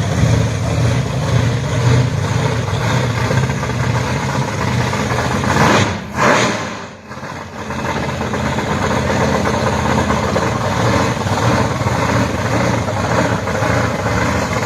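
Chevrolet Impala's engine running steadily at idle. About six seconds in the sound swells briefly, then dips, before settling back to steady idling.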